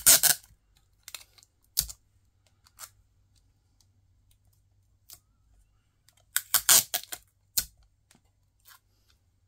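Clear adhesive tape pulled off the roll of a desk tape dispenser and torn off on its cutter: a loud rasping pull right at the start, a shorter one just under 2 s in, and another burst of pulling and tearing about 6 to 7 s in, with light taps and handling between.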